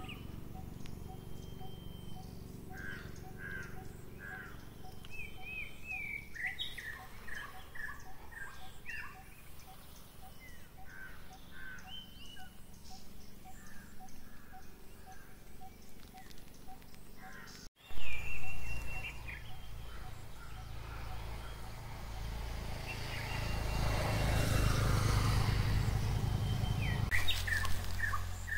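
Wild birds calling and chirping in dry woodland, with short sliding notes and a soft note repeated about twice a second. About two-thirds of the way through there is a sudden loud knock at a break in the recording, and after it a broad rush of noise swells and fades.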